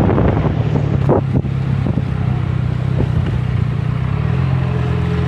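Benelli TNT 302 motorcycle engine running steadily at a low road speed while riding, with wind rushing over the microphone. A couple of short knocks come about a second in.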